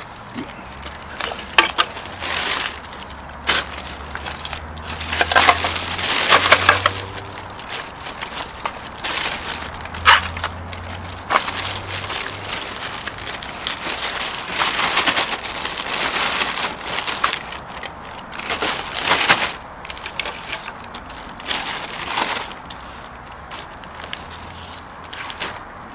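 Plastic bag rustling and crinkling as broken sealed lead-acid battery debris (lead fragments and bits of plastic casing) is gathered by hand and dropped in, in irregular bursts with a few sharp clicks and clatters.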